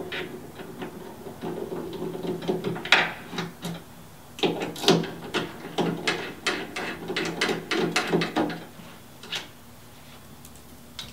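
Light metal clicks and scrapes of a 5 mm hex driver working two center bolts out of a Yeti SnowMX bike mount plate by hand, with the bolts lifted free. The clicking is busiest from about four and a half to eight and a half seconds in, then it thins out.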